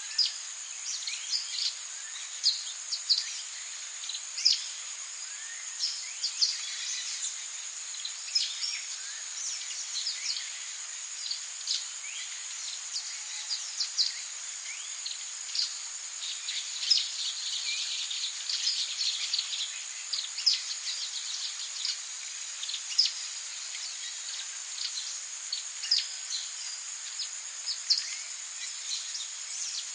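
Tropical rainforest ambience: a steady high insect drone over a soft hiss, with many short, sharp bird chirps and calls coming thick and fast, busiest in the middle.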